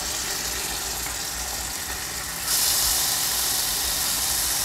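Chopped garlic and ginger sizzling in hot coconut oil: a steady hiss that grows louder about halfway through.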